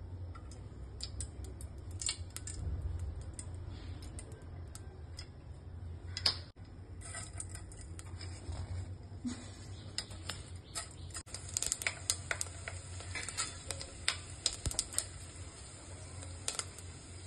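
Hot mustard oil in a steel pot crackling and popping as sugar and then whole spices, bay leaf and cinnamon stick, fry in it. The small sharp pops come thickest in the second half, over a low steady hum.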